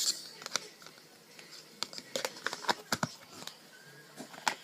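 Clear slime being squished and stretched by hand, giving quick wet clicks and pops, in clusters near the start, through the middle and near the end.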